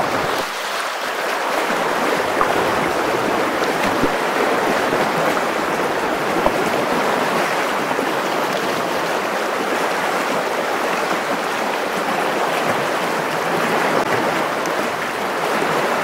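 Fast, shallow river current rushing and splashing around the legs of an angler wading in it: a steady rush of water.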